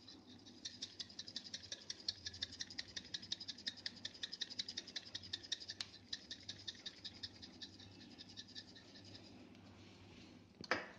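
Handheld stainless steel grinder twisted to grind dried oregano: a faint, fast, even run of small ratcheting clicks, about ten a second, that thins out and stops about a second and a half before the end.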